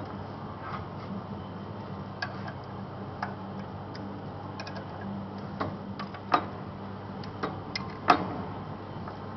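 Scattered, irregular light metallic clicks and knocks of machine parts and tools being handled while the inserts and rollers of a corrugated-elbow bending machine are changed, the two sharpest about six and eight seconds in, over a steady low hum.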